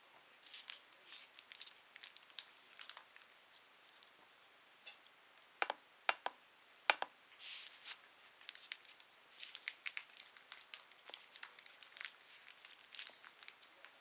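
A cat eating from a saucer: many small irregular clicks and smacks of chewing and licking, with three sharper clicks in the middle.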